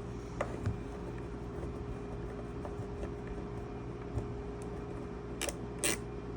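Light clicks and taps from handling a small plastic enclosure and screwdriver, with two sharper clicks close together near the end, over a steady background hum.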